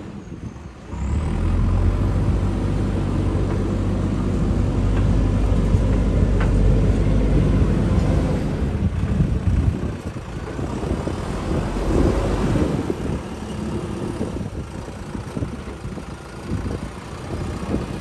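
Heavy diesel engine running with a steady low hum. It starts up strongly about a second in and eases off after about ten seconds, with a short swell in the engine sound a couple of seconds later.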